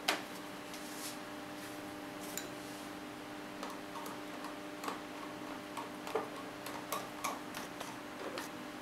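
Screwdriver tip clicking and ticking against a small metal screw as it is turned into the plastic front cover to fix the thermostat, in irregular light ticks. A sharper click comes right at the start, and the ticks cluster more thickly over the second half.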